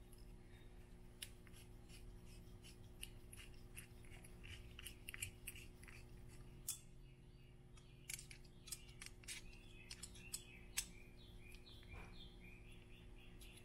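Faint, irregular clicks and scrapes of small plastic and metal parts being handled, with no steady sound behind them.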